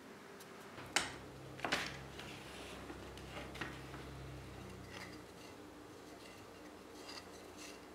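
Quiet handling of a glued-up alder board on a workbench: a light wooden knock about a second in, another soon after, then a few faint clicks and taps.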